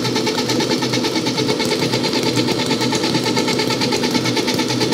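Hobart N50 stand mixer running steadily, its motor and gears giving a constant hum with a fine, rapid rhythm as the beater works batter in the bowl.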